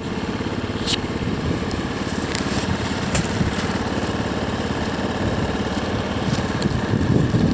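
Strong wind buffeting the microphone: a loud, steady low rumble, with a few short high ticks or rustles.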